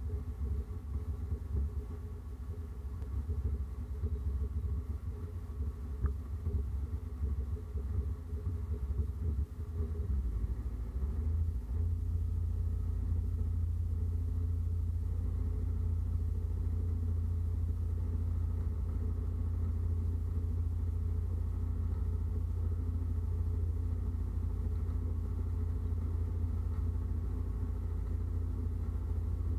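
Thojomech F12A CNC mill cutting aluminium with a standard cutter under flood coolant: a steady low machine drone. It is uneven at first and becomes smoother and steadier about ten seconds in.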